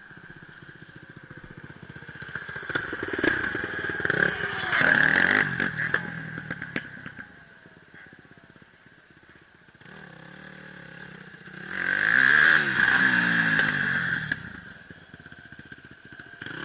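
Off-road enduro motorcycle engines revving up and down, getting loud twice: about four seconds in and again around twelve seconds, with some clatter in between.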